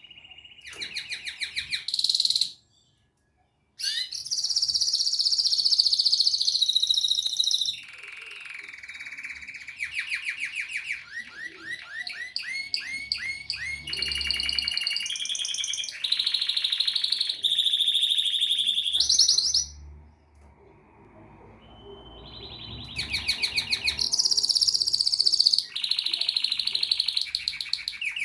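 Domestic canary singing a long song of rapid trills and rolls, each phrase at a different pitch, some with sweeping whistled glides. The song breaks off suddenly for about a second near the start and drops to a softer stretch about two-thirds of the way through.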